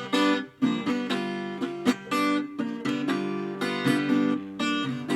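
Acoustic guitar playing blues, a run of strummed chords and picked notes struck in quick succession.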